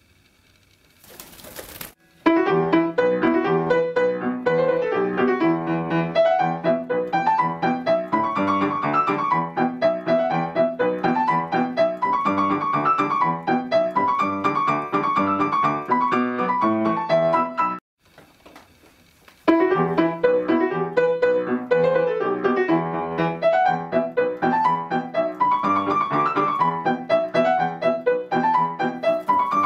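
Background piano music with a steady run of notes, breaking off about two-thirds of the way through and starting again a second or two later. A short burst of noise comes just before the music starts.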